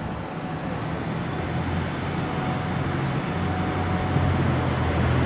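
A motor vehicle's engine running close by in street traffic, a low steady hum that grows gradually louder.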